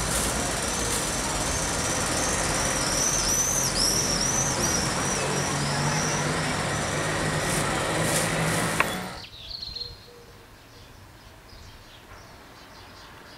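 Busy street-market ambience: murmuring voices, a low vehicle engine hum and small birds chirping over and over. A sharp click comes just before the sound drops suddenly, about nine seconds in, to a much quieter street background with a single faint chirp.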